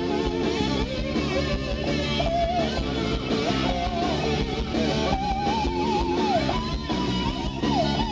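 Live rock band playing, with an electric guitar lead of held notes that bend and waver, over the band's steady backing.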